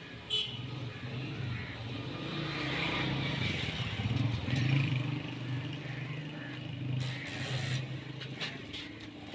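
A motor vehicle engine running nearby, a low uneven hum that swells and fades.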